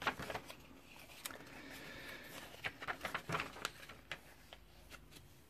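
Pages of a textbook being turned by hand: faint paper rustling with a series of short flicks and crinkles.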